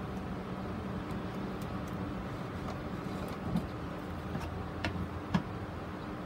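Steady background hum, with three small clicks and taps in the second half, the last the loudest, as fishing line is wound around a moss root ball on a plastic grid mounting board.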